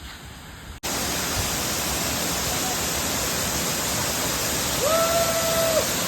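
Waterfall, a steady loud rush of falling water, starting abruptly about a second in after a quieter hiss. Near the end a single held tone, about a second long, sounds over it.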